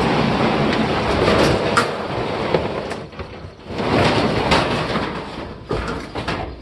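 Harsh scraping and rattling of a hard object in two long stretches, one of about three seconds and one of about two, with sharp knocks in between.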